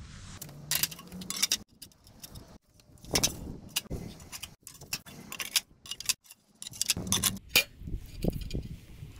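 A string of irregular hard clicks and clinks as porcelain stoneware tiles and edge trim are handled and set down on a concrete slab.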